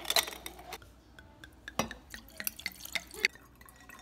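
Ice cubes clinking in a drinking glass: a scattering of sharp clicks and taps, the loudest about two and three seconds in.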